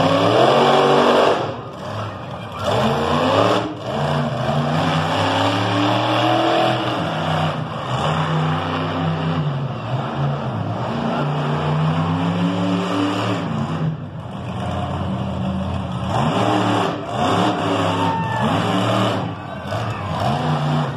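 Monster truck engine revving hard in repeated surges, its pitch climbing and falling again and again, with brief drops about a second and a half in, near four seconds and near fourteen seconds as the throttle comes off.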